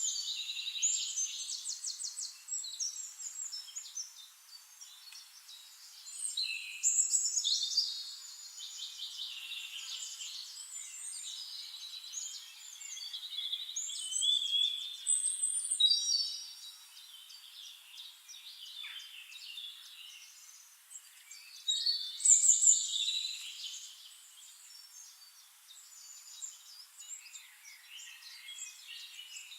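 Several small birds chirping and trilling together in a dense, high-pitched chorus, with louder bursts of song several times.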